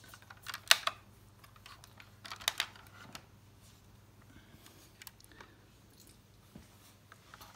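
Handling noise from a 1:18 diecast model car being turned in the hands with its doors opened: scattered light clicks and knocks. The sharpest click comes under a second in, with a few more about two and a half seconds in.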